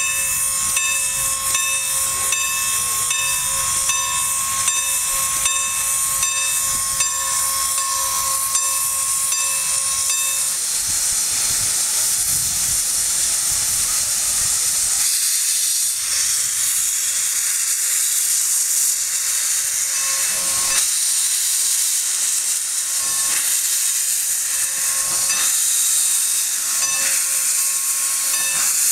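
Norfolk & Western No. 475, a 4-8-0 steam locomotive, hissing steam steadily. A steady tone sounds over the hiss for the first ten seconds or so and briefly again later. Near the end steam blows from the open cylinder cocks.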